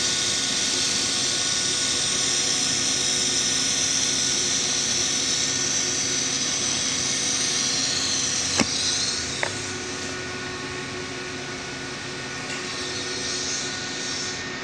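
TIG (argon) welding arc on a steel pipe's root pass: a steady high hiss over a constant hum. About eight and a half seconds in there is a sharp click, then another under a second later. After that the hiss drops away and only a quieter steady hum remains.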